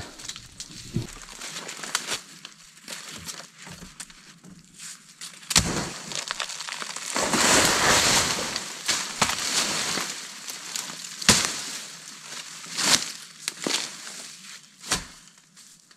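Dry leaf litter and brush crunching and rustling as someone works in forest undergrowth, with a longer crunch about halfway through and several sharp snaps or knocks a second or two apart.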